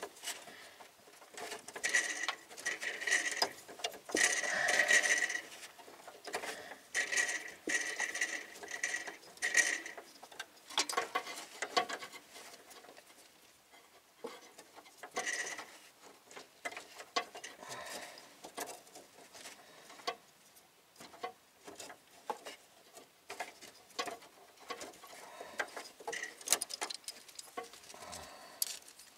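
New brake line being handled and fitted against the underside of the vehicle: irregular light scrapes, rubs and small clicks, denser in the first ten seconds, then sparse ticks and taps.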